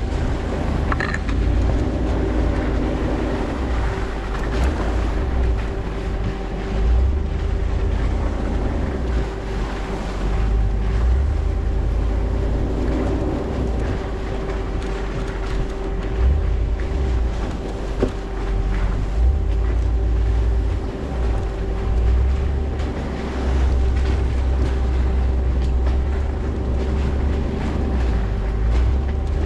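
Vehicle driving along a muddy dirt trail: engine and tyre rumble under a steady hum, with wind buffeting the microphone in uneven low gusts.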